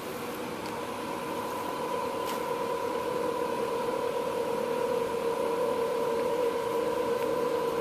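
Steady mechanical hum with a constant whine, slowly growing a little louder.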